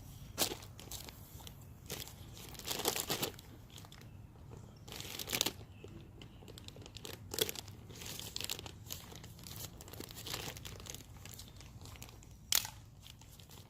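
Plastic bag of topsoil crinkling and rustling in irregular bursts as the soil is emptied out onto the ground. The loudest burst comes about twelve and a half seconds in.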